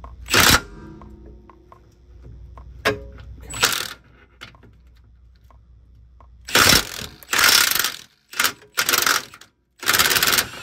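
Cordless impact wrench hammering on an 18 mm steering-rack mounting bolt in short bursts. Two brief bursts come in the first four seconds, then five in quick succession over the last four seconds.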